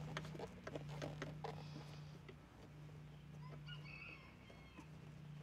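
Light clicks and taps of metal battery hardware as the side-post terminal and cable are handled, mostly in the first second and a half. Faint bird chirps follow, over a steady low hum.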